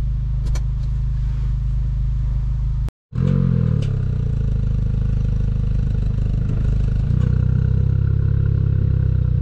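Hyundai i20 N's 1.6-litre turbocharged four-cylinder engine idling steadily, first from inside the cabin. After a brief cut it is heard at the exhaust tip, its revs flaring up briefly and settling back to idle, which runs a little louder from about seven seconds in.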